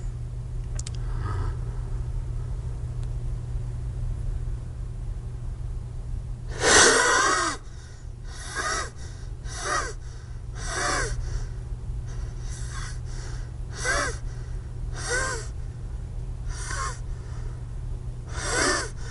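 A man's wheezing, gasping breaths acting out an asthmatic struggle for air: one long, loud strained gasp about a third of the way in, then a string of shorter wheezy breaths roughly a second apart.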